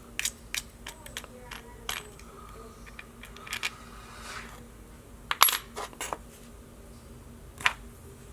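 Small metal fishing-reel parts and a tool clicking and clinking on a hard surface in scattered taps, with louder ringing clinks about five seconds in and again near the end.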